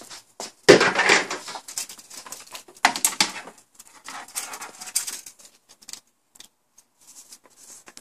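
Handling noise as a plastic filament feed tube and filament are worked by hand into place on a 3D printer: irregular rustles and small plastic clicks and taps, loudest about a second in and again around three seconds in, then thinning out.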